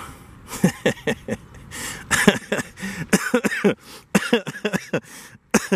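A man laughing and coughing in a run of short, irregular bursts.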